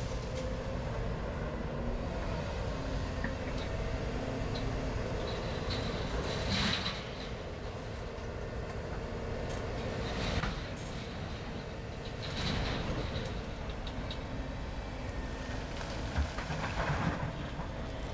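Diesel engines of a crawler excavator and an articulated dump truck running steadily while the excavator loads earth into the truck. Several louder rushes of noise rise and fall over the steady rumble.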